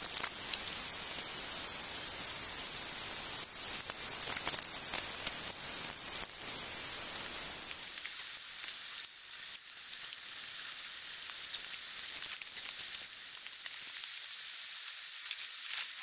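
Steady outdoor hiss with a cluster of light clicks and rustles about four seconds in and a few more ticks later; the lower part of the hiss falls away about halfway through.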